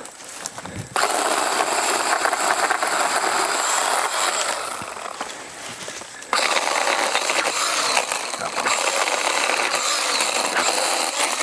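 A power saw cutting through tree limbs in two stretches: one starting about a second in and dying away near the middle, a second starting again about six seconds in.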